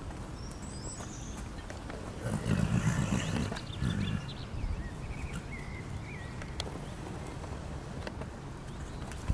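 Mare and foal cantering on soft paddock earth: dull hoof thuds and rumble, loudest about two to four seconds in, with small birds chirping.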